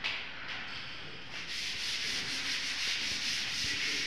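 A steady, rasping scrape with a fast, even pulse, like something being rubbed or sanded, setting in about a second and a half in.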